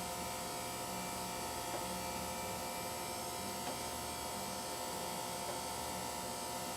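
Amada Wasino Meister Pro CNC grinder running through a grinding cycle, its wheel spindle turning at high speed with a steady whine of several constant tones, and a few faint ticks as the table moves.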